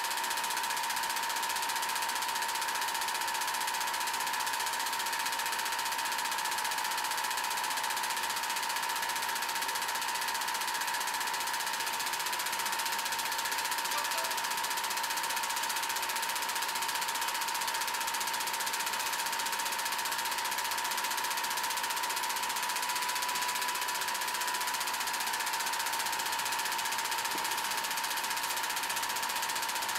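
Home-movie film projector running steadily: an even mechanical clatter with hiss and a steady whine.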